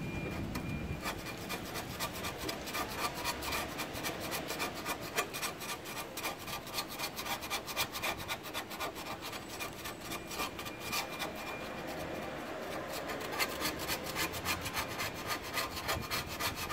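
Metal putty knife scraping stripper-softened paint off a rusty steel plate in quick repeated strokes, a rasping scrape on each pass.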